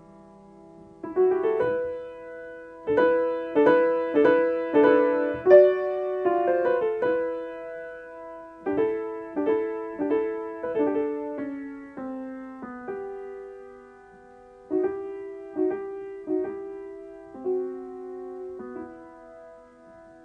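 Background piano music: struck notes and chords, each fading after it sounds, busier in the first half and sparser toward the end.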